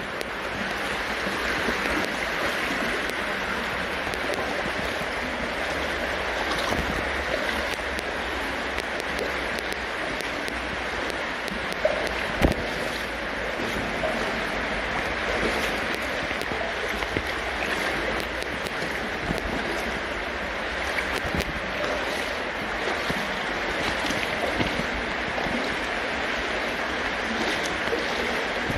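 Brook water flowing through a culvert: a steady rushing hiss, with a couple of short knocks about twelve seconds in.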